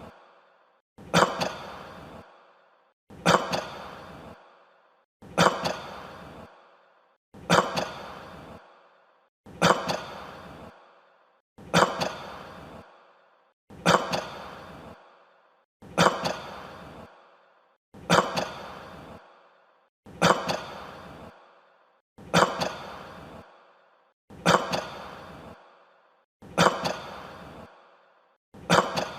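A person coughing over and over at an even pace, one cough about every two seconds, each a sudden loud cough that trails off.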